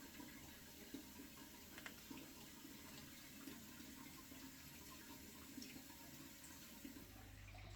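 Faint water trickling and sloshing in an aquarium as the Eheim internal filter is fitted back in, with a few light clicks. A low steady hum starts near the end.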